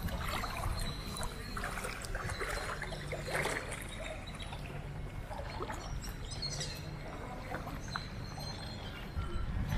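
Beachside outdoor ambience: a steady low rumble of wind and surf, with scattered faint sounds above it.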